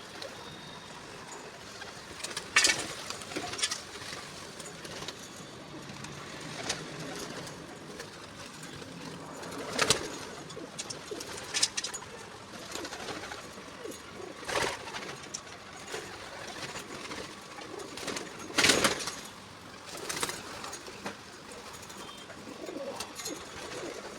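Pigeons cooing, with several short, sharp noises scattered through.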